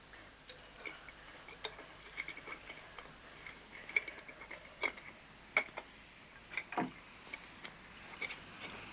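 Small irregular clicks, taps and light clinks from a glass pill bottle and its cap being handled, with a few sharper knocks.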